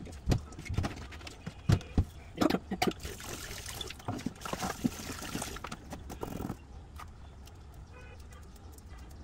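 Clatter and knocks of kitchen bowls and utensils being handled. A steady hiss starts about three seconds in and cuts off abruptly about six and a half seconds in.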